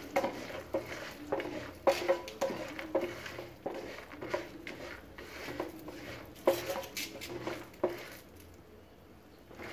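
Wooden spatula stirring and knocking against a non-stick frying pan of groundnuts and curry leaves frying in oil: irregular scrapes and knocks, dying away near the end.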